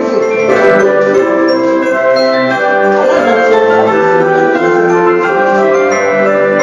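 Background music: an orchestral tune with bell-like mallet percussion, glockenspiel or xylophone, playing steadily.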